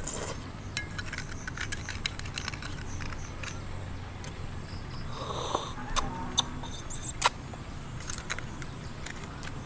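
Eating sounds: a metal spoon clicking and scraping against food as it is scooped and eaten, with scattered sharp clicks and mouth sounds over a steady low hum.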